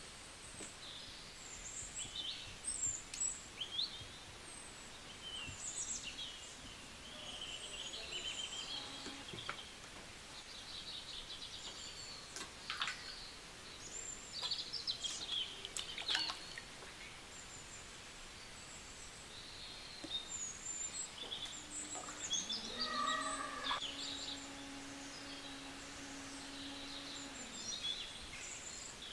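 Birds chirping and calling again and again over a faint steady hiss, with a few light clicks. About three-quarters of the way through, a low pitched tone rises briefly and then holds steady for about five seconds.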